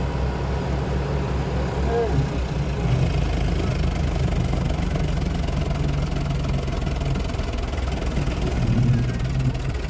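Diesel engines of a Farmtrac 45 and a Sonalika DI 50 Sikander tractor running together in a steady low drone, the two tractors chained back to back for a tug-of-war pull.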